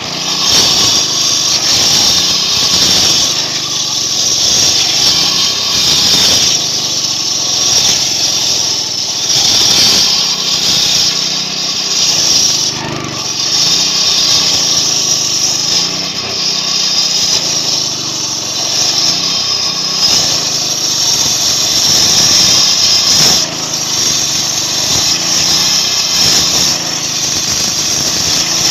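Engine-driven concrete saw cutting a concrete road slab: the engine runs continuously, its note wavering slightly, under a steady high-pitched whine from the blade in the concrete.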